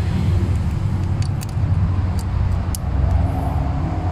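A few light metallic clicks as a feeler gauge is slid between the cam and rocker arm of an Isuzu D-Max 4JJ1 diesel's valve train, checking a valve clearance that a 0.40 mm blade shows to be too wide. A steady low mechanical hum runs underneath.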